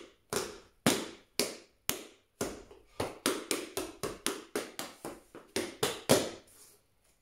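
Tap shoes' metal taps striking a hard floor: about two dozen sharp clicks in quick, uneven rhythmic runs, a tap combination of shuffles, riffs and stamps. The tapping stops near the end.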